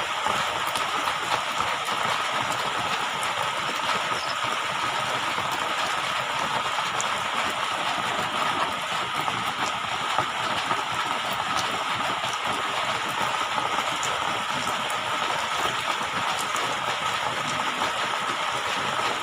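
Steady rushing water noise with a faint steady tone running through it.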